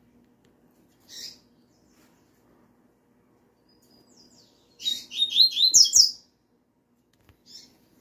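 Male double-collared seedeater (coleiro) giving a short burst of song about five seconds in: a quick run of falling whistled notes lasting about a second and a half. Single short chirps come about a second in and near the end.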